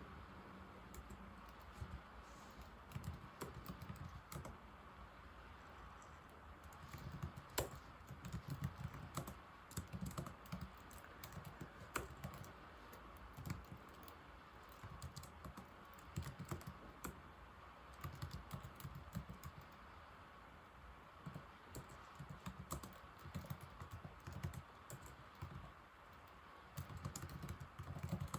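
Typing on an old laptop keyboard: runs of quick key clicks broken by short pauses, with a couple of sharper, louder taps.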